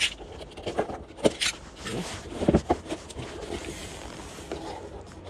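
Cardboard shipping box being cut open and handled: several sharp knocks and scrapes on the cardboard in the first three seconds, then a softer rustling as the flaps are pulled open.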